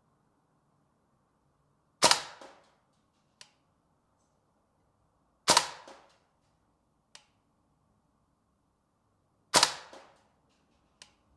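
Tokyo Marui AKM gas blowback airsoft rifle fired three times in semi-auto, a few seconds apart. Each shot is a sharp crack with a short rattling tail as the blowback bolt cycles. A much fainter click follows each shot a second or so later.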